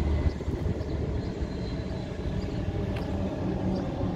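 Steady low rumble of wind buffeting the microphone, with a faint click about three seconds in.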